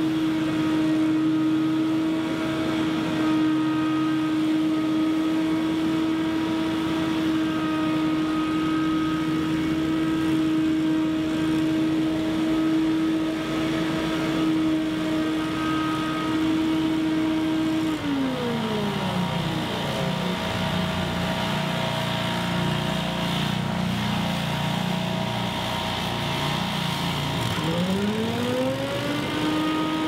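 Gas-engine leaf blowers, a Scag Windstorm stand-on blower and a backpack blower, running steadily with a blowing hiss. About eighteen seconds in, one engine slows down, then speeds back up near the end.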